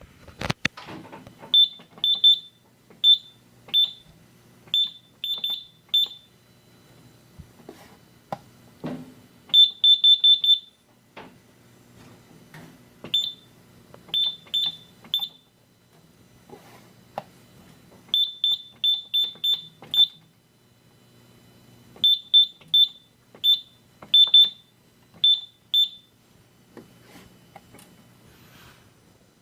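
Short, high-pitched beeps from a Simplex 4100U fire alarm control panel's keypad, one per button press. They come singly and in quick runs of up to five at an uneven pace, with faint clicks and handling knocks between them.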